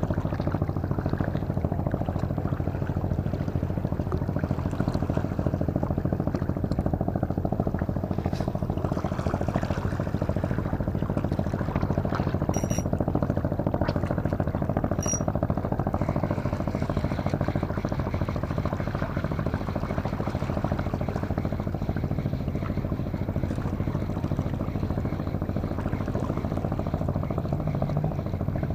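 A boat engine running steadily with a low, even drone. Two faint short clicks come about halfway through.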